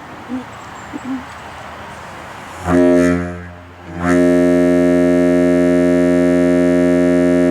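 Deep compressor-fed ship horn on a pickup truck, blown twice: a short blast about two and a half seconds in, then a long, steady, very loud blast from about four seconds in that is still sounding at the end.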